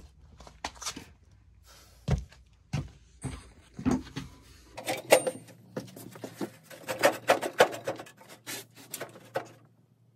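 Irregular clinks and knocks of hand tools and metal parts being handled, with a quick run of them from about five seconds in.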